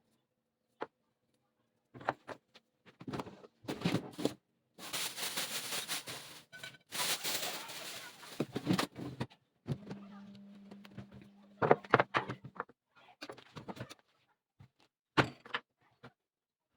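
Household clatter: a series of knocks and thunks, with a few seconds of rushing noise near the middle and a brief low hum just after.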